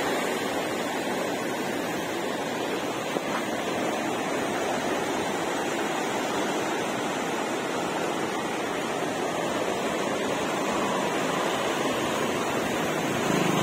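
Godavari River in full flood, its fast, turbulent brown water rushing past the bank in a steady, unbroken roar of moving water.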